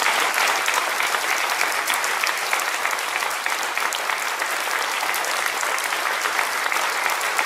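Audience applauding: a steady round of many hands clapping.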